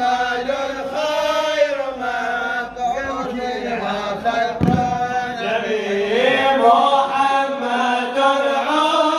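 Male radood chanting a mawlid jalwa in Arabic, held melodic vocal lines.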